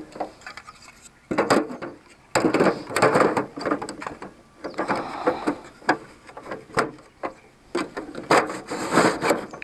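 Hard plastic parts of a hand-push seed planter being handled and fitted together: irregular clicks, knocks and scraping as the clear seed drum and its top piece are pressed and turned into place.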